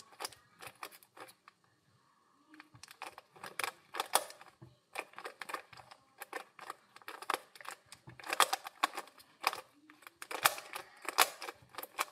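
A Rubik's cube being turned rapidly by hand during a speed solve: a fast, irregular run of plastic clicks and clacks as the layers snap round, with a brief pause a couple of seconds in.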